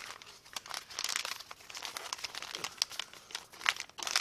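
Glossy plastic sachets of foot peeling masks crinkling and rustling as they are handled, with irregular crackles that are louder about a second in and again near the end.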